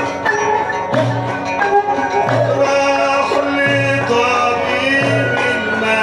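Egyptian Sufi dhikr music: a bending melody line and male singing over a frame drum, with a deep beat about every one and a half seconds.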